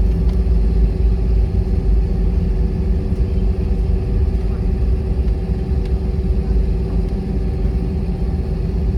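Airliner cabin noise with the engines running before takeoff: a steady low rumble with a constant droning hum on top, unchanging throughout.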